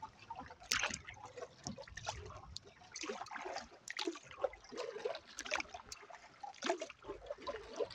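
Canoe paddle strokes in calm lake water: a few irregular splashy dips of the blade, with water trickling and dripping off it in between.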